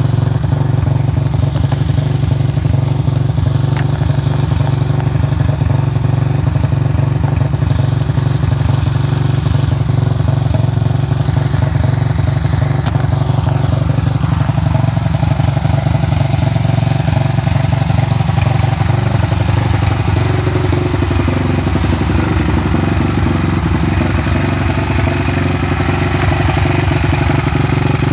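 Suzuki LTR 450 quad's single-cylinder four-stroke engine idling steadily through a Yoshimura RS5 exhaust, with a fast, even exhaust pulse.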